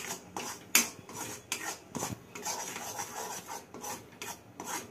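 Flat spatula scraping and stirring gram-flour batter in sugar syrup around a steel kadhai, in repeated uneven strokes, the loudest scrape a little under a second in.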